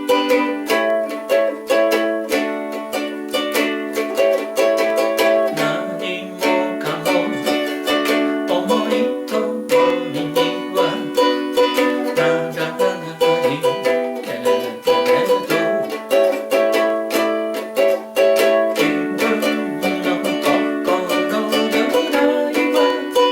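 Ukulele strummed in a steady rhythm, playing the chords of a practice song.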